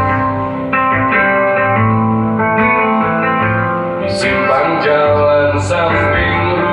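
A man singing to his own acoustic guitar, strummed chords changing about once a second.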